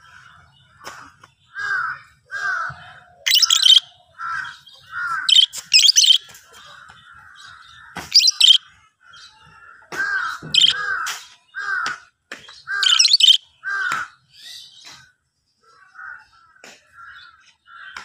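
Fischer's lovebird calling: a run of short chirps about one or two a second, broken every few seconds by louder, shrill shrieks. The calls thin out and grow fainter in the last few seconds.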